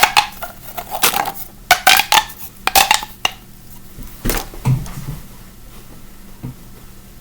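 Mini plastic pop tubes being stretched and bent: quick runs of ridged clicking and popping, some with a faint pitched whir, in the first three seconds. Then a single knock about four seconds in and lighter handling.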